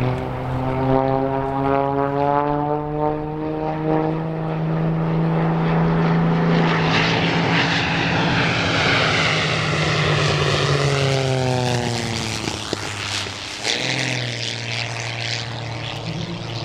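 MXS aerobatic monoplane's propeller piston engine running hard in flight. Its note climbs slowly, then drops steeply in pitch as the plane passes, about eleven seconds in. Near the end the note dips briefly and picks up again.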